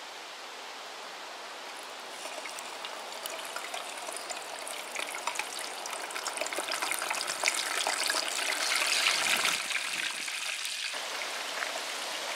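Hot oil in a deep fryer sizzling and crackling as a Cornish hen is lowered into it, with a dense hiss full of sharp pops. It starts about two seconds in, grows louder over several seconds, then eases a little into a steady sizzle.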